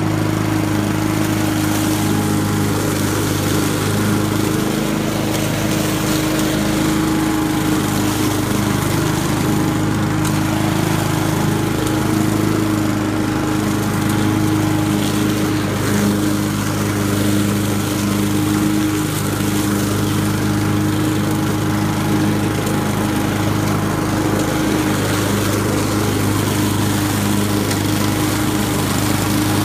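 Honda walk-behind lawn mower's single-cylinder four-stroke engine running steadily under load as it mows through leaf-covered grass. A constant drone that holds its pitch and level.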